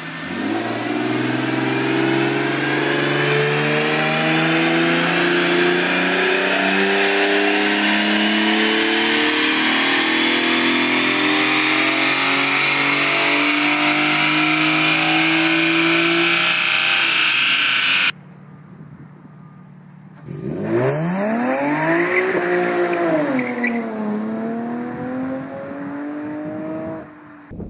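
A 2008 Infiniti G37S's 3.7-litre V6, breathing through Stillen headers, high-flow cats and catback, makes a full-throttle pull on a chassis dyno. Its pitch climbs steadily for about sixteen seconds, then cuts off abruptly. After a short lull the same car accelerates hard along a street: the revs rise, drop once at an upshift and climb again as it goes by.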